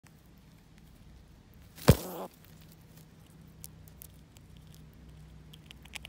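A single sharp knock about two seconds in, ringing briefly, followed by faint scattered light clicks.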